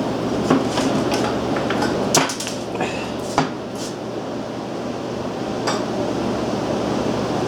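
Metal clanks and knocks as the heavy oil sump base is worked off a Briggs & Stratton Model Q engine: about five separate knocks, the sharpest about two seconds in.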